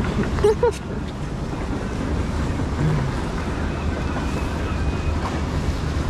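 Steady rushing water noise with a low rumble as a round river-rapids raft floats along its channel, mixed with wind buffeting the microphone. A short voice sound about half a second in.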